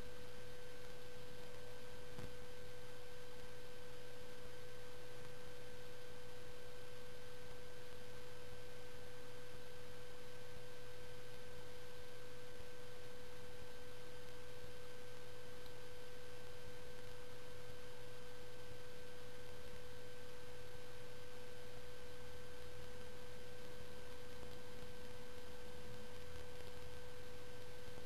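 A steady, unchanging electronic tone, a single pitch in the middle range with fainter higher tones above it, over a low hiss.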